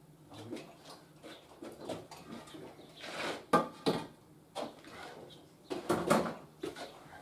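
Irregular knocks and clatter of tools and timber being handled and set down, with the sharpest knocks about halfway through and again around six seconds in.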